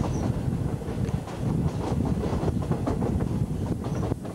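State Railway of Thailand train running along the track, heard from the carriage: a steady low rumble with irregular clatter of the wheels over the rails.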